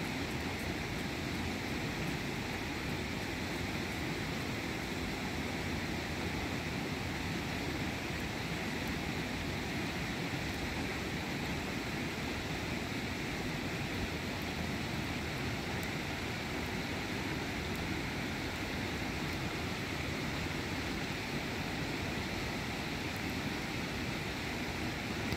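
Steady rush of flowing river water, an even unbroken noise.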